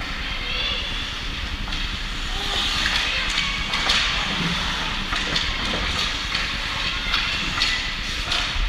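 Game noise from a basketball court: a steady hubbub of crowd and players, with short high squeaks and many sharp knocks.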